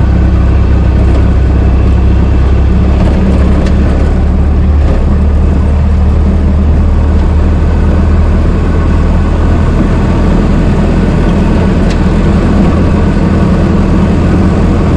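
Old car engine running steadily with a low, even hum and no revving.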